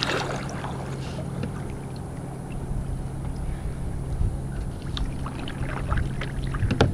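Kayak paddle dipping into calm water, with small splashes and drips near the start and again from about five seconds in, over a low steady hum.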